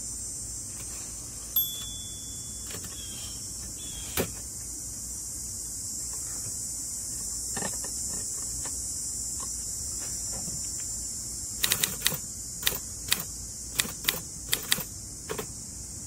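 Mechanism of a 1960 Olympia SM-4 manual typewriter clicking: a few single clicks spread out, then a quick run of about ten sharp clicks near the end. Crickets chirr steadily and high in the background.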